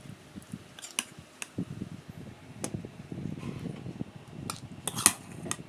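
Low fluttering rumble, typical of a handheld phone being moved, with about seven short sharp clicks scattered through it, the loudest about five seconds in.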